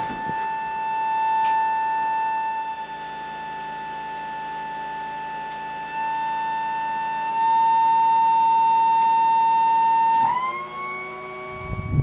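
CASA 212-400 turboprop engines running at constant speed: a high, unchanging whine over a low drone. About ten seconds in, the whine dips sharply and settles again at a slightly higher pitch.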